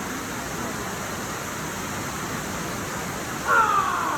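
Steady rush of water from a waterfall. Near the end a voice calls out loudly, falling in pitch.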